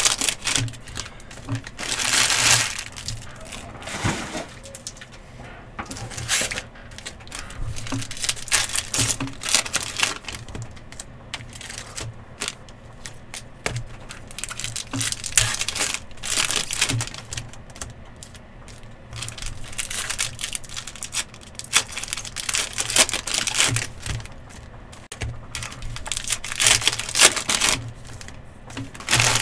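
Trading-card pack wrappers crinkling and tearing open, with cards being handled and shuffled, in an irregular run of quick crackles and clicks.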